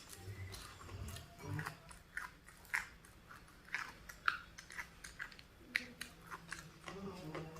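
A person chewing and crunching food, in irregular crisp bites.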